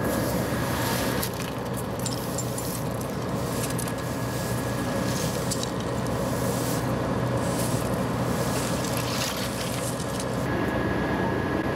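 Diesel engines of fire apparatus idling steadily, with push brooms scraping crash debris across asphalt in short, scratchy strokes.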